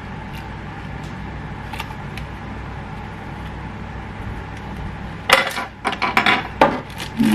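Small plastic parts being handled: a few faint clicks, then a burst of clattering and rattling from about five seconds in, over a steady low hum.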